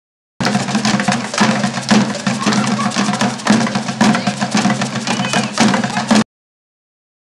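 Batucada: a samba-style percussion group drumming a dense, driving rhythm. About six seconds in it cuts off suddenly.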